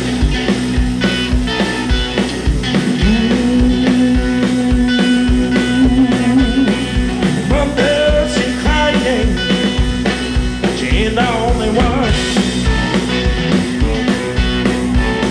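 Live blues-rock band playing: baritone and lead electric guitars over a steady kick-drum beat, with a man singing lead vocals.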